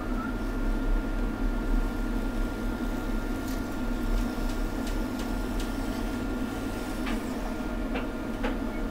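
A steady low electrical hum with a thin steady whine above it, and a few faint light clicks from about three and a half seconds in as a craft knife cuts Silpad thermal pad sheet.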